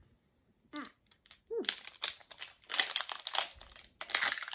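The plastic wrapping of an LOL Surprise ball crinkling in bursts as it is torn and peeled open, loudest from about a second and a half in.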